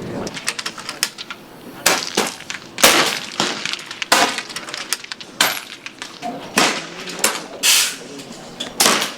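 Air rifles firing on a shooting line: a string of sharp cracks, with about seven louder reports roughly a second apart among many lighter clicks.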